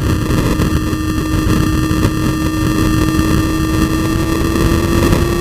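2007 Honda CBR600RR inline-four engine running at speed, its note rising slowly as the bike accelerates. The sound comes through GoPro audio so garbled that it sounds stuck in 8-bit mode.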